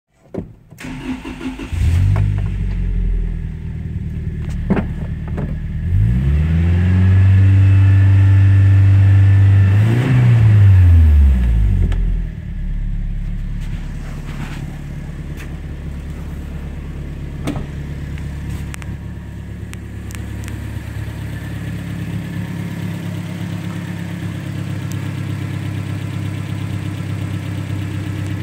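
A 1997 Toyota Tacoma's 2.4-litre four-cylinder engine cranks and catches about two seconds in. It is revved up a few seconds later and held there, then drops back around the middle and idles steadily for the rest.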